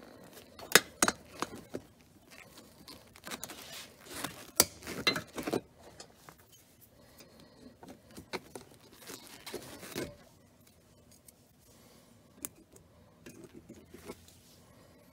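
Large wire snips cutting and working off steel hog rings on a car seat's spring frame: sharp metallic clicks and snaps with short scrapes. They come in clusters about a second in and again between four and six seconds, and thin out to a few ticks after ten seconds.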